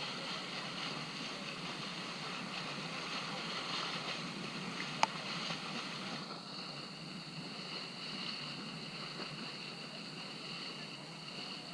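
Motorboat running under way: a steady engine drone with rushing water and wind on the microphone, its high whine shifting a little about six seconds in. A single sharp click sounds about five seconds in.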